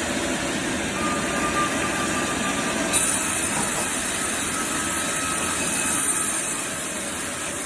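Bandsaw running with a steady mechanical whir. About three seconds in, a thin high-pitched whine joins it.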